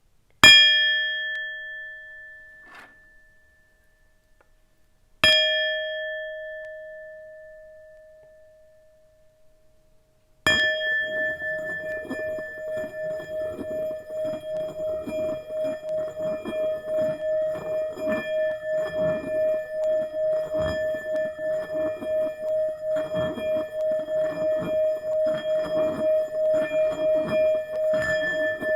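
Tibetan singing bowl struck twice, each strike ringing out and fading over several seconds. About ten seconds in it is played again and then held ringing on the same note, its loudness wavering in a steady pulse, with a rough rubbing noise underneath, as when a mallet is circled around the rim.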